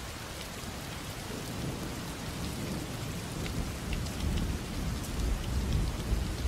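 Steady rain falling, with scattered drop ticks, and a low rumble of thunder building in the second half.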